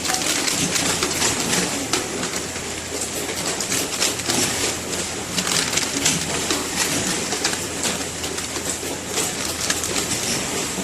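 Seasoned laver flake (gim-jaban) weighing machine running, a steady mechanical clatter of many quick clicks with a faint high whine.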